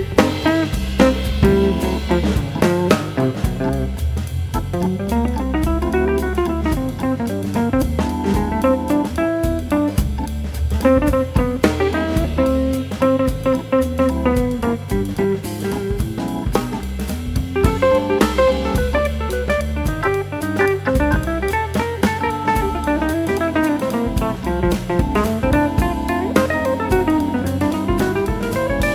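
Background music: a guitar-led instrumental with a drum kit keeping a steady beat.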